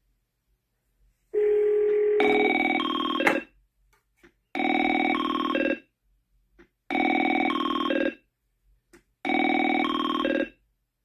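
Grandstream GXP2170 IP desk phone playing a downloaded AT&T Merlin ringtone: an electronic ring in short bursts of stepped tones, four bursts a little over two seconds apart. The first burst opens with a single low tone, and a sharp click comes near its end.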